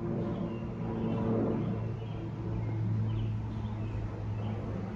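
Propeller airplane flying overhead, a steady low engine-and-propeller drone that swells slightly twice as it passes.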